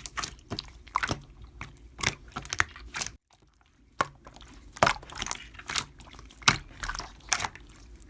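Slime being pressed and worked by hand, making sharp wet clicks and crackles several times a second, broken by a short silent gap a little over three seconds in.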